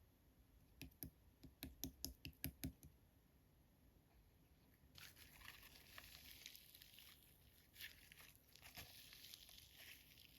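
Slime being played with by hand: a quick run of sharp clicks and pops in the first three seconds, then a soft, steady crackling rustle from about five seconds in.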